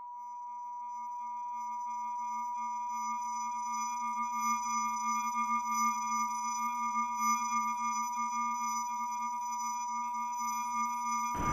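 Synthesized drone of a horror soundtrack: a steady high pure tone that fades in slowly, with a lower wavering hum and fainter high ringing tones above it. It cuts off suddenly near the end.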